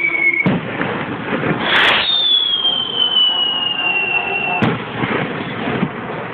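Whistling fiesta skyrockets (cohetes): a falling whistle ends in a sharp bang about half a second in. After a hiss, a second whistle falls slowly in pitch for about two and a half seconds and ends in another bang.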